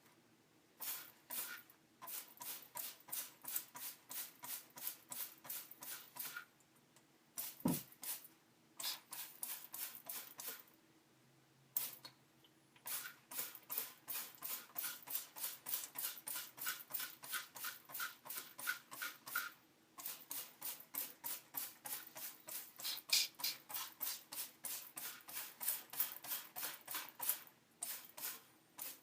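Trigger spray bottle of liquid cleaner being squeezed again and again, each pull giving a short, sharp spritz. The spritzes come in rapid runs of about three to four a second, with a few short pauses between runs.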